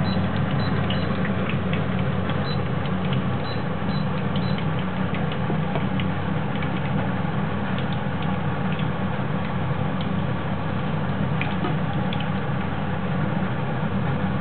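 Vegetable fritters frying in hot oil in a small pan, with scattered crackles and pops over a steady low hum.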